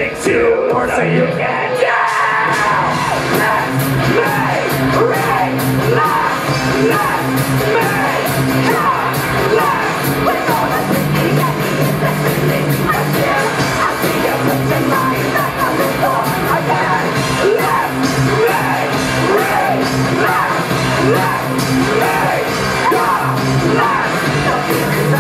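A live band playing rock music with a steady drum beat, guitar, bass and vocals, heard through the room's PA.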